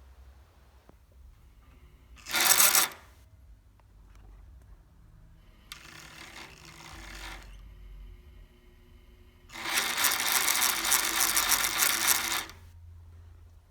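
Consew 227R industrial sewing machine running in three bursts of fast mechanical rattle: a short loud one about two seconds in, a quieter one about six seconds in, and a longer loud one from about ten seconds in. A faint steady motor hum carries on between the bursts. The owner calls the machine's sound strange.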